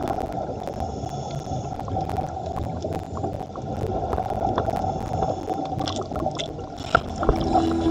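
Underwater gurgling and bubbling from divers' exhaled air rising to the surface, heard as a steady, muffled churn with a few scattered clicks.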